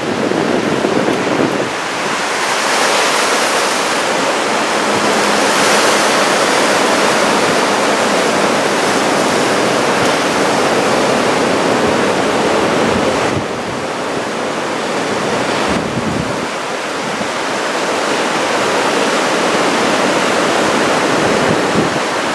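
Heavy surf from a typhoon swell breaking and rushing, with wind buffeting the microphone; the noise eases briefly a little past the middle.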